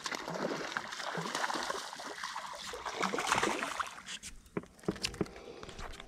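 A hooked speckled trout splashing and thrashing at the water surface as it is reeled in to the side of the boat, loudest about three seconds in. A few sharp clicks follow near the end.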